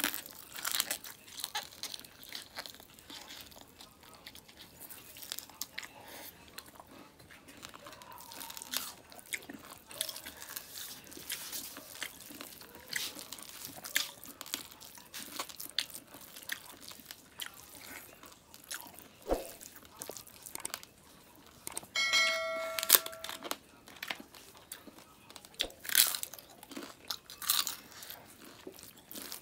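Close-up eating sounds: chewing and biting of rice and smoked pork eaten by hand, with many short wet clicks and crunches. About two-thirds of the way through, a brief steady pitched tone lasts about a second.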